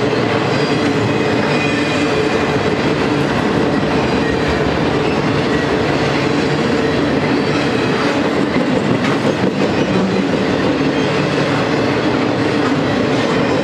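Intermodal freight train's cars, loaded with containers and trailers, rolling past: loud, steady steel-wheel-on-rail noise with occasional clacks of wheels over the rail.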